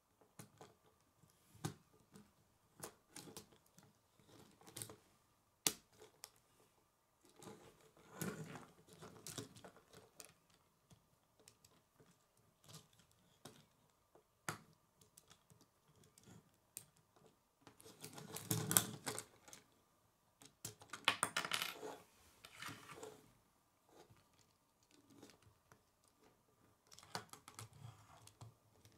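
Plastic K'nex rods and connectors clicking and snapping as they are fitted together and handled, light scattered clicks with a few longer spells of rattling clatter, the loudest about two-thirds of the way through.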